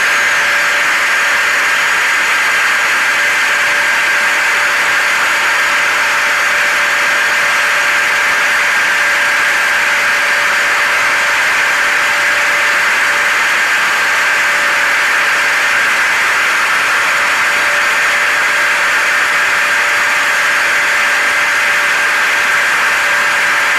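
Hair dryer and vacuum cleaner running together as a constant white-noise blend: a loud, even motor hiss with a steady whine in it, never changing.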